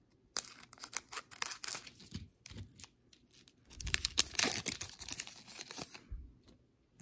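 Trading-card pack wrapper crinkling and tearing as the cards are pulled out and handled, a run of irregular crackling rustles that stops about six seconds in.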